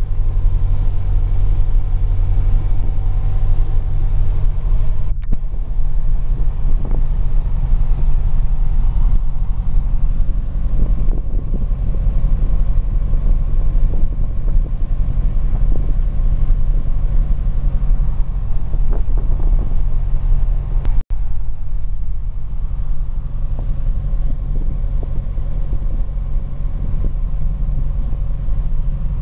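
A light aircraft's propeller engine heard from inside the cockpit, a loud, steady drone as the plane moves along the ground toward takeoff, with two brief breaks in the sound.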